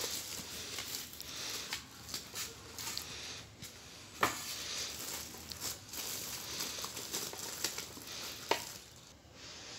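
Clear plastic wrap crinkling and rustling as a sandwich maker in its plastic bag is pulled from its styrofoam packing and handled, with a couple of sharper snaps, one about four seconds in and another after eight seconds. The rustle dies down near the end.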